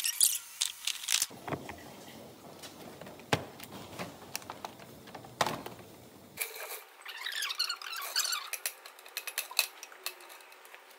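Workshop handling noises: scattered sharp clicks and knocks of parts and tools being moved. From about six and a half seconds in there is a denser spell of light, quick rattling and clinking.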